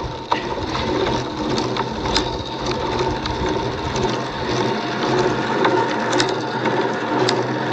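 Road bicycle drivetrain whirring steadily as the rider pedals slowly uphill, chain running over the gears, with scattered light clicks.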